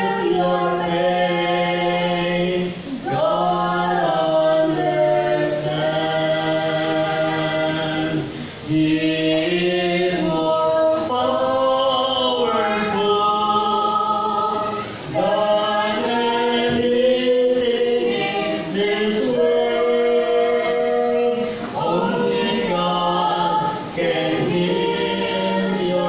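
A small group of male and female voices singing a hymn together in harmony through microphones, with long held notes and brief breaths between phrases.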